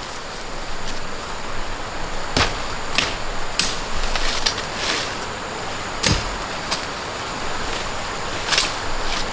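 Half a dozen sharp knocks and clicks at irregular intervals over a steady rushing noise.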